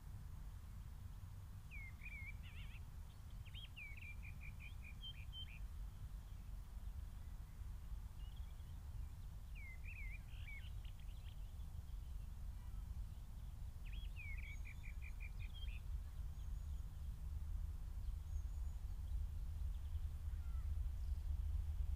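A songbird singing four short phrases, each a quick swooping note followed by a rapid run of repeated notes, over a low rumble that grows louder toward the end as a steam train approaches in the distance.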